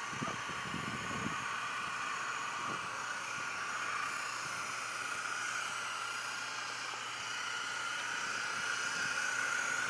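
Radio-controlled scale model boat's motor giving a faint steady whine over a constant hiss, a little louder near the end as the boat comes close.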